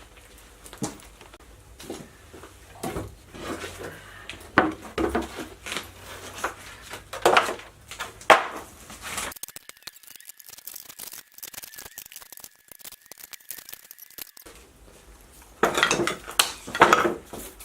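Irregular clatter and knocks of hard objects being handled and set down, with a quieter stretch in the middle.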